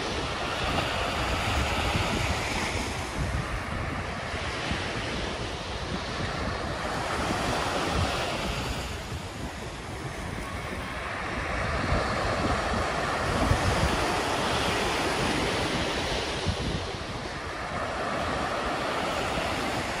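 Waves washing in on a shore, swelling and ebbing every five seconds or so, with a low wind rumble on the microphone.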